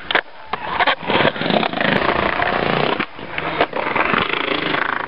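Skateboard wheels rolling loudly on smooth concrete, broken by several sharp clacks of the board hitting the ground, about a second in and again near the end.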